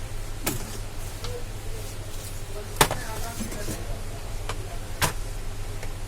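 A few sharp clicks and knocks from tools and parts being handled and set down on a workbench while preparing to solder, the loudest about three seconds in. A steady low electrical hum runs underneath.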